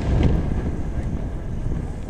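Low rumble of aerial firework shells bursting, slowly dying away, with one faint crack about a quarter second in.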